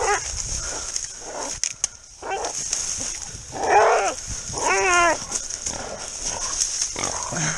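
Wild pig squealing in several short, wavering cries while a catch dog holds it by the head, over a steady high hiss.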